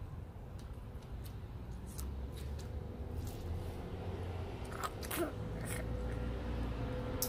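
Scattered wet clicks and smacks of a mouthful of bubble gum being chewed, over a low steady rumble.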